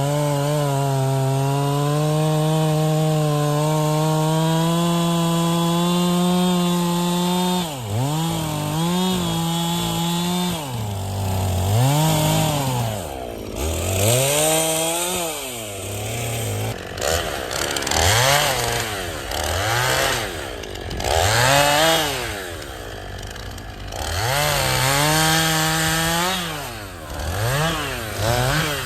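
Two-stroke chainsaw held at a steady high speed for about the first seven seconds, then revved up and down repeatedly, roughly every two seconds.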